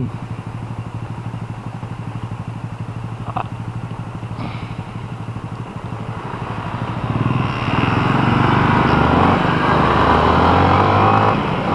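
Yamaha Sniper 155's single-cylinder VVA engine idling steadily, then revving up as the motorcycle pulls away about seven seconds in, with the engine and road noise growing louder with speed.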